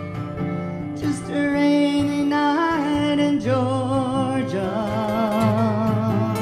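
A woman singing a slow song to acoustic guitar accompaniment. The voice comes in about a second in, with long held notes and vibrato.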